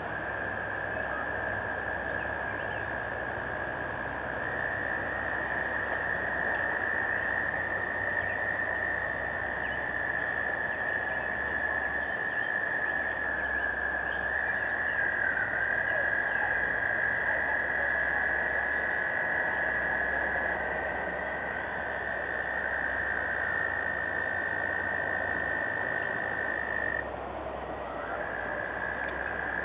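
Chorus of frogs: several long, steady, high trills overlapping at slightly different pitches, with one dropping out briefly near the end.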